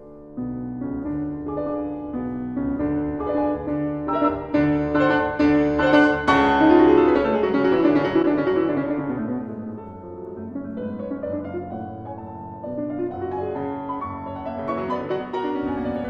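Piano music playing a busy passage of chords and quick runs. It swells to its loudest about six to eight seconds in, then carries on more softly.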